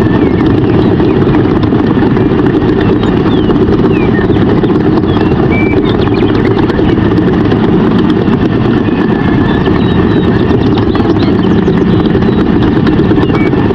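Steady, loud low rumble without a break, with a few faint short high chirps over it.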